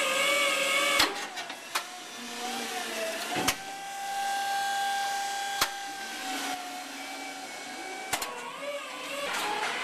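Electric motor of a Crown order picker whining. Its pitch wavers, holds steady and higher in the middle, then drops away, and several sharp clicks break in.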